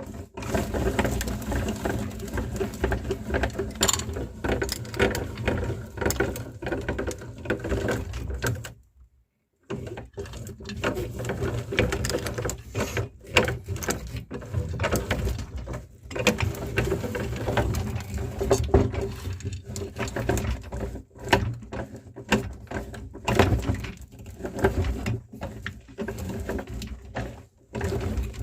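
Meat grinder running, a steady hum under dense crackling and clicking as the material goes through it; it stops briefly about nine seconds in, then runs again until it cuts off at the end.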